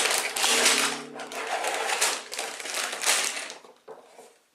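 An opened cardboard Lego set box being handled and searched, rustling and clattering for about three and a half seconds before fading out.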